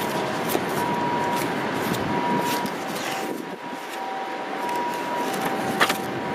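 Wind on the microphone over a steady city background rush. Over it come the rustle and snap of planner paper pages being turned by hand, with a sharper snap near the end.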